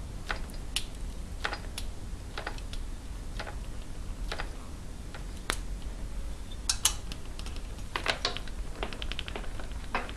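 Light metallic clicks and ticks from a hand-turned thread-insert tool winding a tanged wire thread insert into a rocker-stud hole in a cylinder head. The clicks come irregularly, with a few louder ones and then a quick run of about ten ticks a second near the end.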